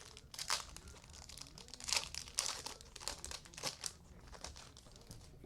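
Crinkling and rustling of trading cards and their plastic or foil wrapping being handled, in irregular bursts that are loudest about two seconds in.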